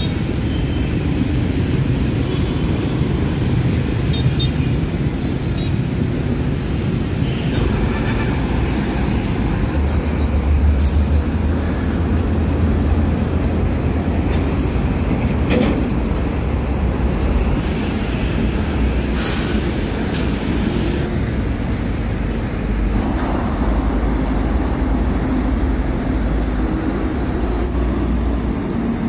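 Road traffic: motorbikes and heavy trucks passing, with a steady low rumble and several brief hisses.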